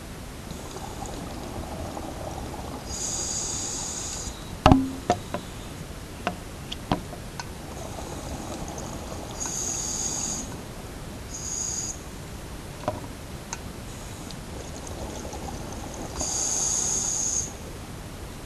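Underwater breathing sounds from a diver's breathing gear: a short hiss about every six to seven seconds, with softer noise between. A few sharp clicks of equipment come about five to seven seconds in, the first the loudest.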